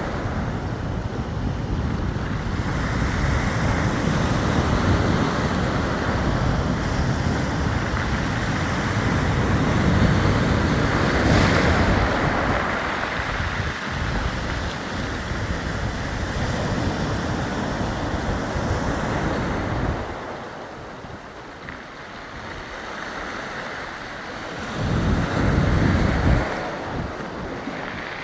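Waves washing over a beach of smooth round pebbles, rolling the stones, with wind gusting on the microphone. The low rumble eases about twenty seconds in and swells again near the end.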